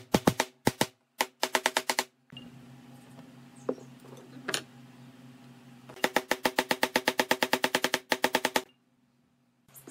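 Wooden mallet tapping quickly and lightly on a pine board, about eight strikes a second, each strike ringing the board. The tapping stops for a few seconds partway through, leaving only a faint low hum, then starts again.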